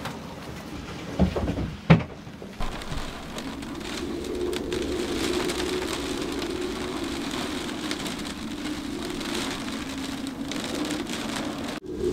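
Two knocks from the boat's companionway hatch being pulled shut. Then steady rain on the sailboat's cabin roof and windows, heard from inside the cabin.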